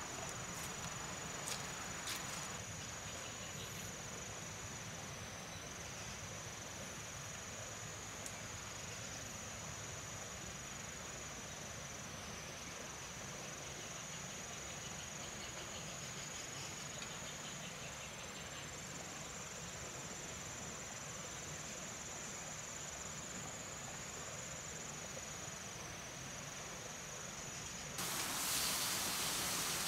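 Insects shrilling steadily in the forest: one continuous high-pitched drone. A few faint clicks come near the start, and shortly before the end a louder, broad hiss cuts in.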